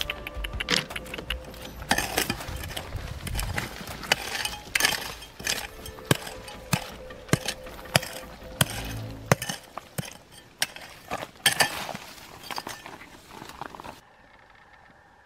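Hard objects clinking and knocking irregularly, several sharp strikes a second over a low rumble. It cuts off suddenly about fourteen seconds in.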